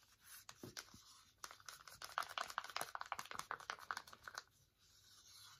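Wooden stir stick scraping and clicking against the inside of a small plastic cup, mixing red paint into thick matte gel medium. Faint, rapid strokes that pick up about a second and a half in and pause near the end.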